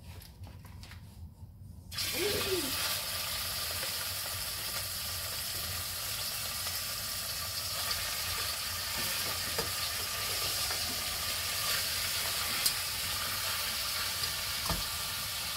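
Meat frying in hot olive oil in a stainless steel pot, sizzling steadily after starting suddenly about two seconds in.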